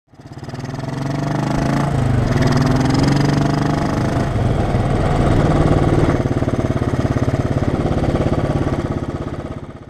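2015 Royal Enfield Bullet 500's single-cylinder engine running while the motorcycle is ridden, with a steady pulsing exhaust beat. Its note rises over the first two seconds, then holds. The sound fades in at the start and fades out near the end.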